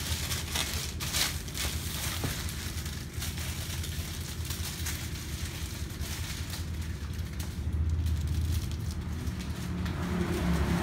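Plastic mailer bag crinkling and rustling as it is handled and cut open with scissors, with scattered sharp crackles in the first couple of seconds.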